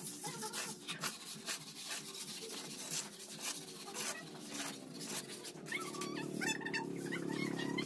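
Concrete hollow blocks knocked and shifted by hand as they are set on the wall: a run of short knocks and scrapes. From about three-quarters of the way in, a motorcycle engine comes up and grows louder.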